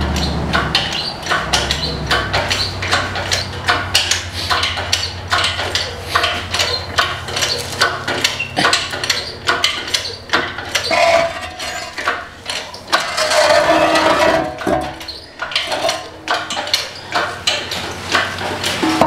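Irregular metal clinks, clicks and knocks of hand tools working on a John Deere 550 dozer's engine. A low engine hum fades away over the first few seconds.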